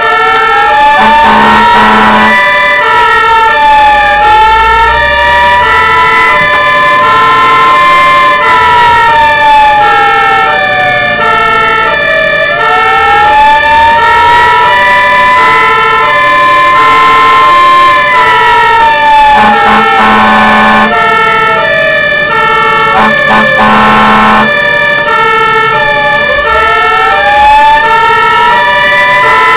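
Fire engine sirens on an emergency run. One siren rises and falls slowly, about every ten seconds. Another alternates steadily between two tones underneath it. There are short horn blasts near the start and twice about two-thirds through.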